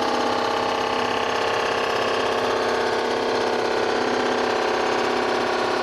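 Rottler cylinder-head surfacing machine running, its spindle and cutter head making a steady, even machine whir with several held tones while it machines across the cylinder head.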